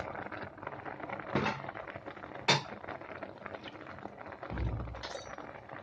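Sugar being added to a pot of simmering syrup: a faint steady hiss with two sharp clinks against the pot, about one and a half and two and a half seconds in, and a dull low thump near the end.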